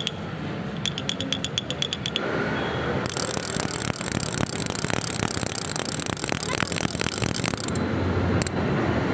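Wooden toy rattles being shaken. A quick run of sharp clicks comes first, then from about three seconds in a denser, hissing rattle.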